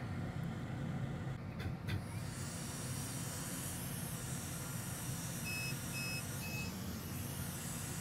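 Hot-air rework station blowing on the circuit board to reflow the solder under an HDMI connector: a steady hiss of air that comes in about two seconds in. Three short, evenly spaced electronic beeps sound partway through.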